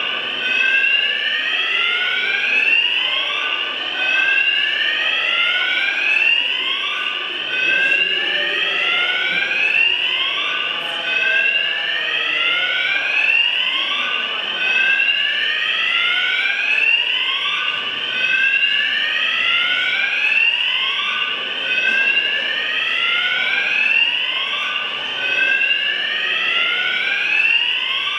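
Electronic alarm whooping, a rising sweep repeating about once a second without a break.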